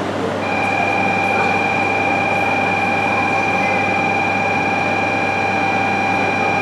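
A steady electronic ringing tone, like a platform departure bell, starts abruptly about half a second in and holds at one pitch over the running hum of the stationary E3-series shinkansen.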